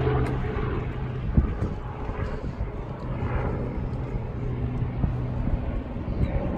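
Wind buffeting the microphone over a steady low mechanical hum that fades out about five and a half seconds in, with one thump about a second and a half in.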